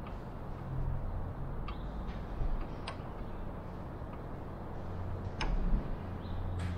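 Light ticks of a steel rule and metal parts being handled at a drill press, a few short taps a second or more apart, over a low steady hum.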